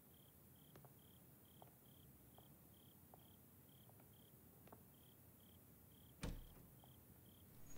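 Faint cricket chirping at an even pace, about two chirps a second, over near silence, with a few soft ticks and a single thump about six seconds in.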